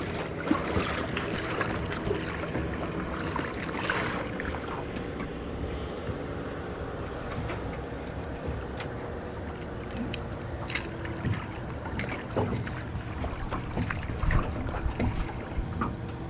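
Boat motor running with a steady low hum, under scattered knocks and rattles of handling on the boat.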